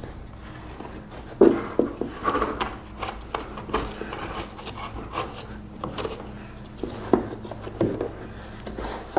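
Hands working loose and clearing the cut-off wood at the foot of a freshly undercut wooden door casing: irregular small knocks, scrapes and rubbing of wood on wood and on the subfloor.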